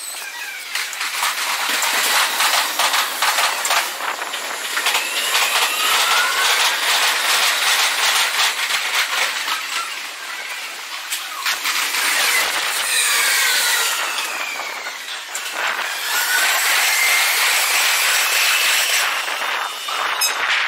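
Meitetsu electric trains running over the station tracks, sped up four times: a dense, rapid clatter of wheels over rail joints and points. Motor whines slide up and down in pitch several times.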